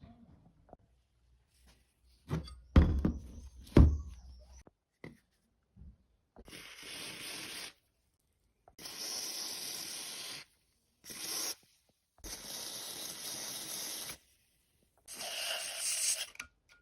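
A few loud metallic knocks, then five hissing bursts of one to two seconds each, with dead silence between them.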